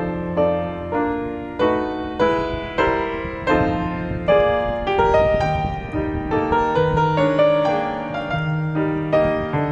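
Piano music, a melody and chords struck at an even, gentle pace.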